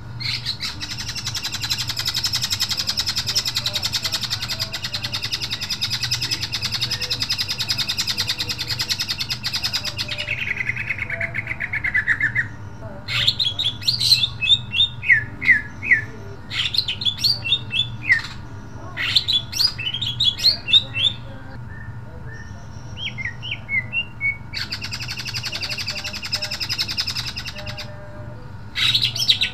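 Caged male green leafbird (cucak ijo) in full song: a long, fast rattling trill that sinks in pitch after about ten seconds, then runs of loud, sharp down-slurred whistled notes, with another rattling trill near the end.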